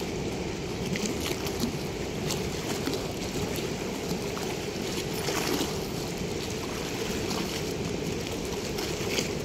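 Steady rush of water pouring through a weir's sluice gate, with a few faint ticks over it.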